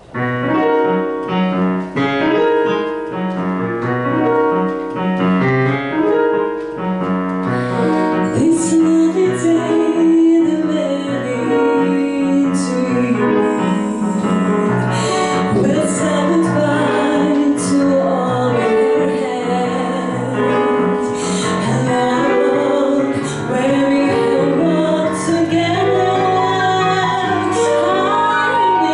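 Digital piano playing chordal accompaniment. About eight seconds in, a woman starts singing into a handheld microphone over the piano.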